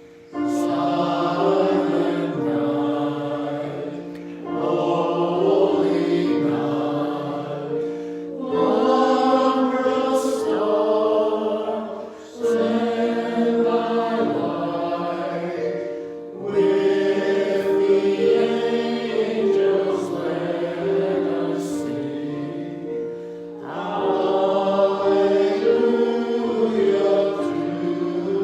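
Choir singing slowly, in held phrases of about four seconds each with short breaths between them.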